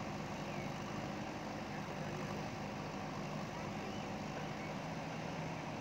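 JCB backhoe loader's diesel engine running at a steady, unchanging speed.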